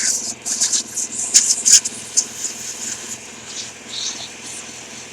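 A vacuum motor running steadily, with many short bursts of high hissing and crackling during the first three seconds, fewer later, as metal filings and dirt are cleaned off a car radio chassis.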